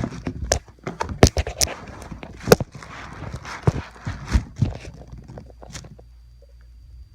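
Handling noise while unpacking a boxed guitar: irregular knocks, taps and rustling of the box and packing, dying down to light handling in the last second or so.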